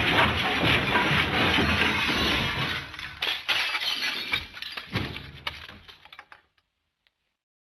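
The MGM Elephant Smash cartoon sound effect: a long, loud crash of breaking glass and debris, already under way, which after about three seconds breaks up into scattered clatters and falling bits that die away, ending about six and a half seconds in.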